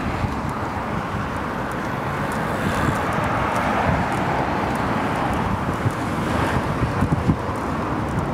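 Wind rushing over a handheld microphone on a moving bicycle, over steady tyre and road noise, with a few light knocks near the end.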